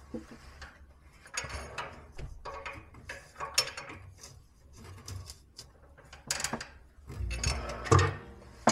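Plastic sink bottle trap and waste fittings being handled and screwed together by hand: irregular clicks, rattles and scrapes of plastic, with a few louder knocks near the end.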